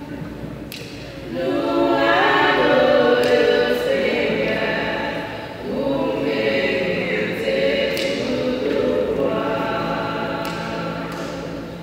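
Women's vocal group singing a gospel song together in harmony into microphones, in two long sung phrases with a short dip about five and a half seconds in.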